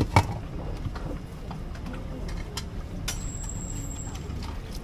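Busy street ambience with a steady low rumble of traffic. Two sharp knocks a fraction of a second apart right at the start, and a thin high whine for about a second a little past halfway.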